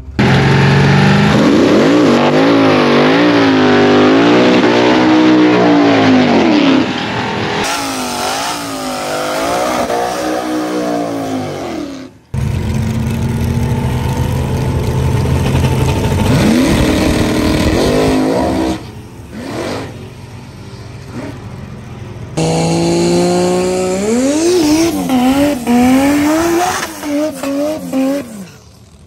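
Drag-race car engines revving hard, the pitch swinging up and down again and again. The sound breaks off and restarts suddenly about twelve seconds in.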